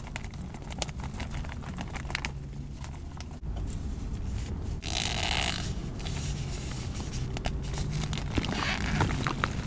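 Hands squeezing and breaking powder-coated gym chalk blocks: soft crunching and crumbling with small scattered ticks, and a louder gritty crunch about five seconds in.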